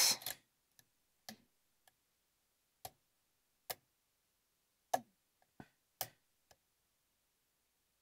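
Faint, sharp metallic clicks of a steel hook pick working the pins inside a brass pin-tumbler lock: about eight at irregular intervals, stopping about six and a half seconds in.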